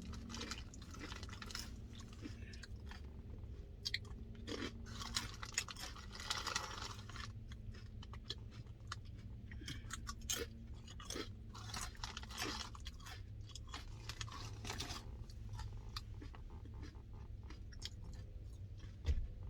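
A person chewing and crunching food close to the microphone, with irregular bursts of short crackly crunches between softer, wetter chewing.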